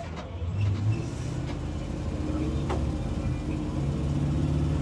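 2022 IC CE school bus's gasoline engine running, getting louder about half a second in and holding there. The bus has an exhaust leak.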